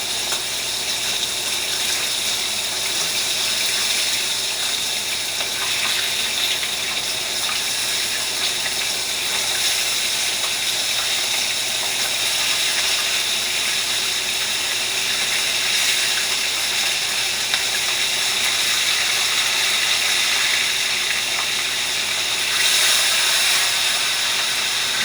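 Fish frying in a pot: a steady sizzle.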